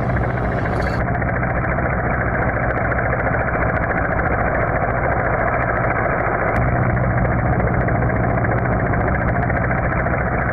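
A steady mechanical rumble like an engine running, with a low hum that grows stronger about six and a half seconds in.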